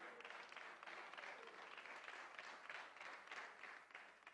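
Faint applause from a church congregation, a soft, even patter of many hands clapping.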